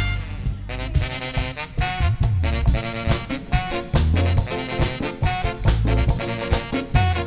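Latin dance-band music: brass and saxophones over bass and percussion, with a tune starting up under a second in on a driving, punchy beat.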